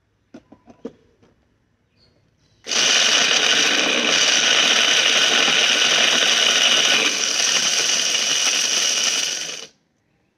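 A few light clicks, then an electric mixer grinder starts and runs loudly and steadily for about seven seconds, grinding dry makhana (fox nuts) in its small jar to powder, and cuts off abruptly.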